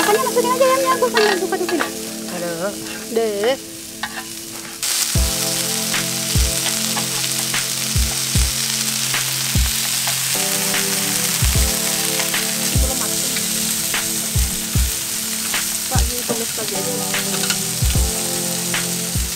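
Meat sizzling and frying on a ribbed grill pan over a portable gas stove, stirred and turned with chopsticks. The sizzle comes in about five seconds in and then runs steadily.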